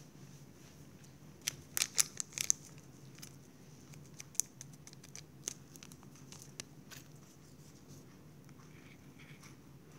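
Small plastic packet of guar gum powder crinkling as it is handled and emptied, with a quick cluster of sharp crackles near the start. Scattered light ticks follow as a plastic scoop works in a glass bowl.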